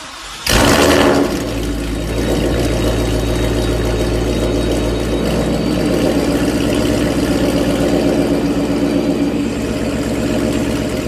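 Ford Mustang GT's 5.0-litre V8 starting up: it catches about half a second in with a loud flare of revs, then settles into a steady idle through a loud exhaust.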